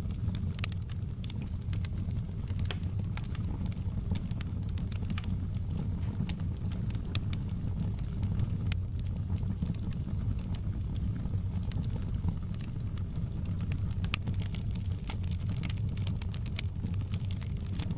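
Wood fire crackling: frequent irregular sharp pops and snaps over a steady low rumble of the burning fire.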